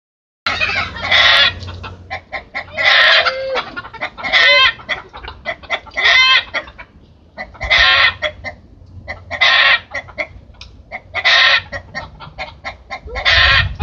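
Chickens in a coop: a hen cackling over and over, a run of short clucks followed by a loud squawk, repeated about every two seconds.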